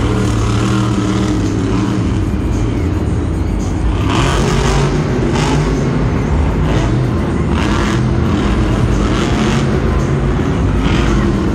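Monster truck's supercharged V8 engine revving hard in repeated surges from about four seconds in, as the truck drives and jumps during a freestyle run. Arena music plays underneath.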